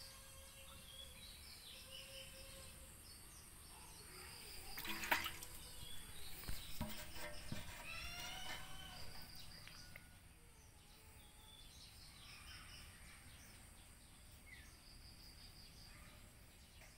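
Faint outdoor ambience of birds chirping and insects with a steady high buzz, with repeated short trills. A louder stretch of chirps and clicks comes about five seconds in and fades by nine seconds.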